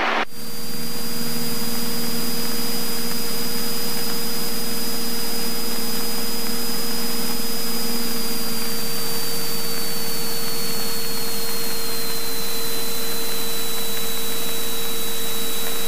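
Cabin noise of a Cessna 172N Skyhawk in level flight: its four-cylinder Lycoming engine and propeller running steadily under a strong airflow hiss. A thin high whine over the drone drifts slightly lower about halfway through.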